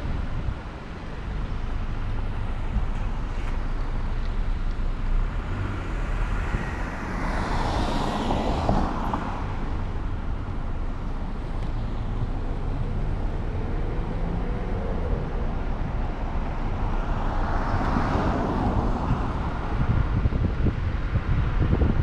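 Steady road and wind noise from a car driving along a street, a low rumble underneath, swelling louder twice, about eight and eighteen seconds in, as other vehicles pass.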